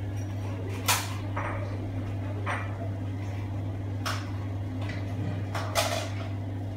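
A steady low hum under a handful of short, sharp knocks and rustles, the loudest about a second in and near the end.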